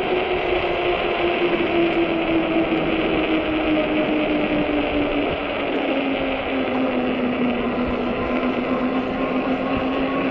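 Electric hub motor of a 48 V fat-tire e-bike whining steadily while riding. Its pitch drops a step about halfway through as the bike slows. A steady rush of wind on the microphone and tyre noise runs underneath.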